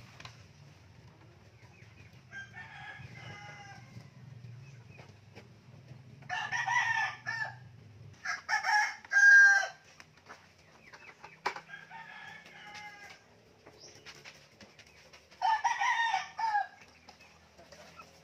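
Roosters crowing one after another, about five crows of a second or so each, some near and loud, others fainter and farther off. The loudest crow comes about nine seconds in.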